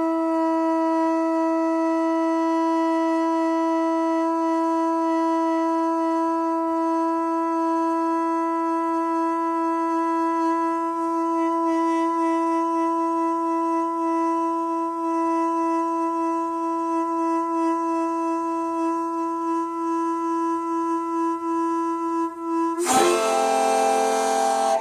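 A wind instrument holding one steady, unwavering note without a break for about 23 seconds. Near the end it breaks into a short rough burst and settles on a lower note.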